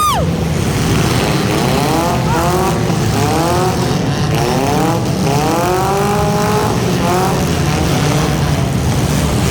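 Front-wheel-drive hobo-class race cars' engines running hard, their pitch climbing again and again as they accelerate through the gears, over a steady low rumble.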